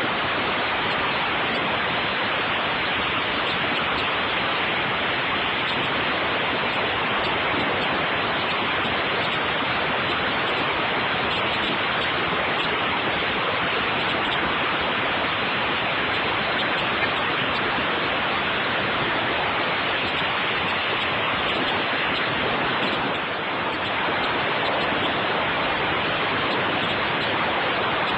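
Concrete mixer running: a steady, even rushing noise of the turning drum and churning mix, with no clear rhythm.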